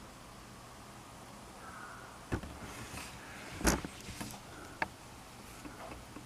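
A few short metallic clicks and knocks from mounting hardware being handled and fitted to a mirror bracket, the loudest about three and a half seconds in.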